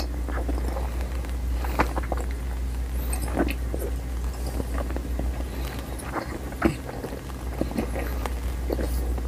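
A huge mouthful of Xylitol chewing gum chewed with the lips closed, close to a clip-on microphone: irregular wet smacks and clicks, with a steady low hum underneath.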